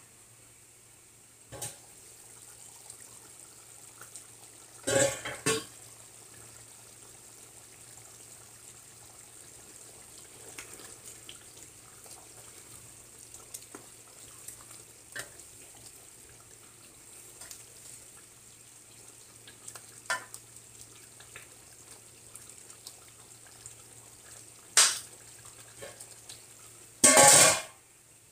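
Stainless steel pot lid lifted off and set down with a loud clatter about five seconds in, then a wooden spoon stirring a chunky chicken and potato stew with small knocks against the pot. Near the end the metal lid is put back on with two clanks, the last a ringing clatter.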